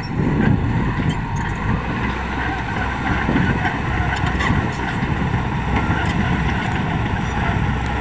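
Komatsu D85 crawler bulldozer's diesel engine running steadily under load as it pushes earth with its blade, with scattered faint clanks from the machine.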